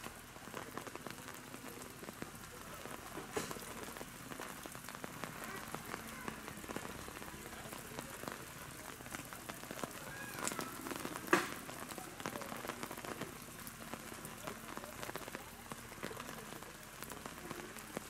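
Steady rain falling, a dense patter of small drops, with one sharper knock a little past the middle.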